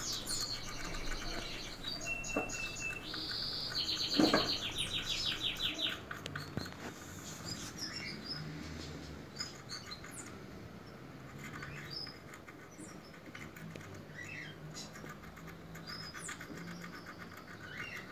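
Background chirping of small animals: a few rapid pulsed trills in the first six seconds, then scattered faint short chirps. A single knock about four seconds in is the loudest sound.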